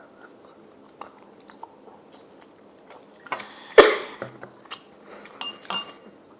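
Close-up chewing of food with scattered small mouth clicks, a single knock nearly four seconds in, and two short ringing clinks of tableware near the end.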